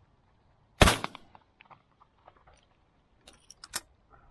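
A single shotgun shot about a second in, followed by a few sharp clicks near the end.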